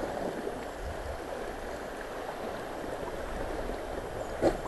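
Swollen, muddy river water rushing and washing around a paddled raft, a steady wash of noise. A short, louder sound comes near the end.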